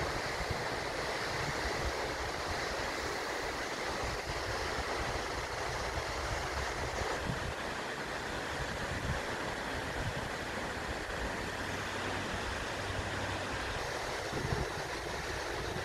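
A waterfall rushing steadily, with uneven low wind rumble on the microphone.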